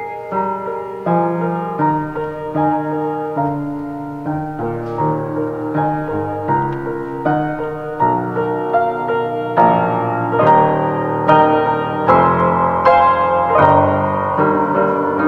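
Solo piano playing a slow, flowing instrumental piece, one struck note after another, getting fuller and louder from about eight seconds in.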